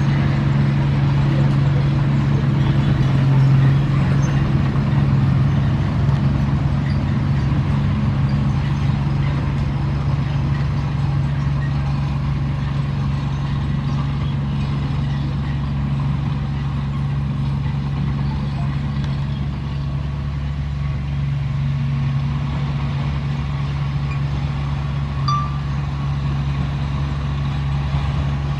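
Komatsu D31P bulldozer's diesel engine running with a steady drone, with a brief high squeak near the end.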